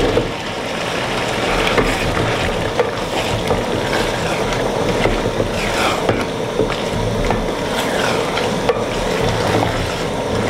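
Diced potatoes dropped into a pot of frying tomato sauce at the start, then stirred in with a wooden spoon. The sauce sizzles steadily under scattered scrapes and knocks of the spoon against the aluminium pot.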